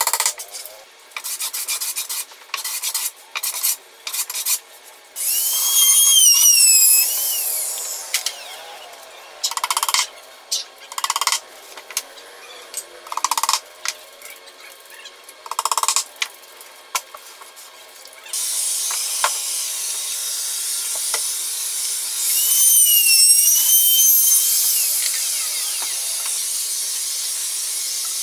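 Workshop hand work on a cabinet box: a run of short rubbing and scraping strokes. About five seconds in, and again for the last third, a louder steady hiss with a wavering whine in it.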